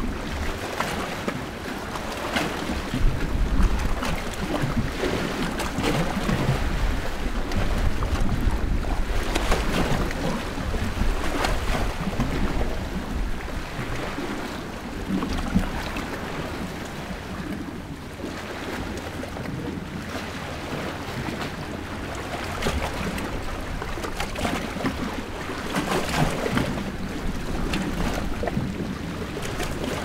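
Small Mediterranean sea waves washing on a rocky shore, full of little splashes, louder through the first third, easing off, then swelling again near the end.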